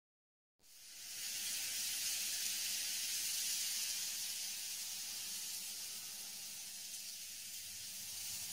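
A steady high hiss that fades in about half a second in after a moment of dead silence and holds evenly.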